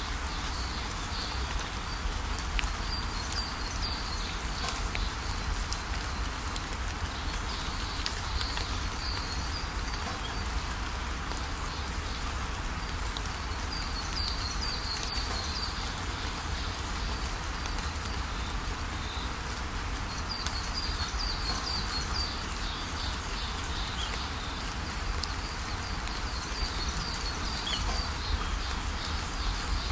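Steady rain, with short bursts of high chirping from small animals several times over.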